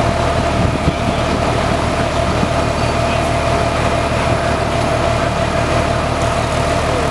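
A large engine idling steadily: a low drone with a steady mid-pitched hum on top.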